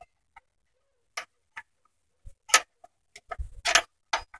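Irregular sharp metallic clicks and clinks of hand tools and car parts being handled during battery removal, loudest about two and a half seconds in, with a quick cluster near three and a half seconds.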